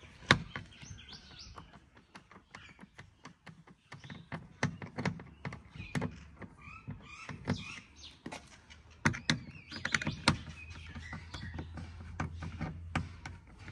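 Screwdriver turning out the screws under the plastic pull handle of a Suzuki Mehran door panel, giving a string of small sharp clicks and scrapes of the bit in the screw heads. Birds chirp in the background.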